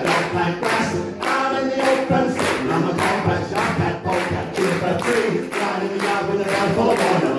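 Two men singing together over a steady beat of about two strokes a second.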